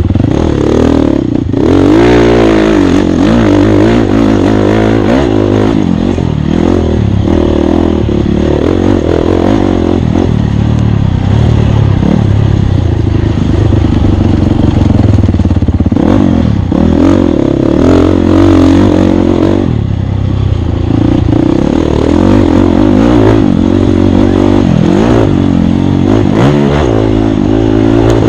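Dirt bike engine under race load, revving up and down repeatedly as the throttle opens and closes, with rattling and scraping from the bike over rough ground.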